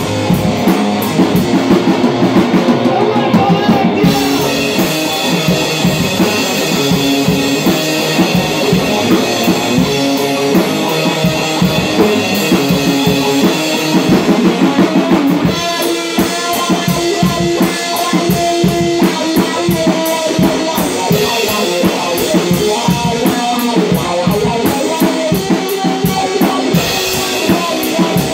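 Rock band playing live on drum kit and guitar. The playing changes about four seconds in and again about halfway through.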